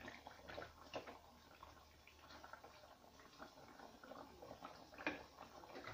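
Faint, scattered light clicks and taps of a thin utensil working inside a pot, with a sharper tap about a second in and another near the end.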